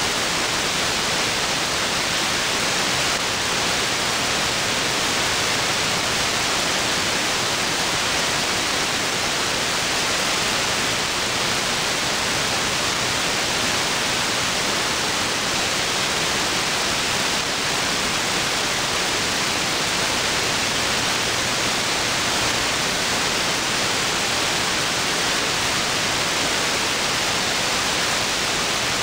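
Steady static hiss from an SDRplay RSP1 software-defined radio in AM mode, tuned to an empty airband channel: the receiver's own noise during dead air between transmissions.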